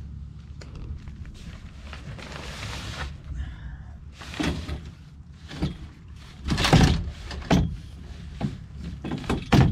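A series of hard clunks and knocks, with a rustling scrape before them, from boat gear being handled while a small sailboat is rigged. The loudest knocks come about seven seconds in and just at the end.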